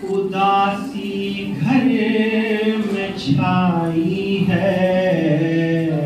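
A man chanting a noha, a Shia lament, unaccompanied, in long held melodic notes that slide between pitches, amplified through a microphone.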